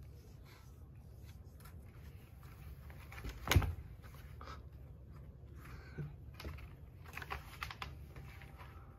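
Cats' claws scratching and picking at a corrugated cardboard scratcher, a run of small irregular clicks and scrapes, with one loud thump about three and a half seconds in.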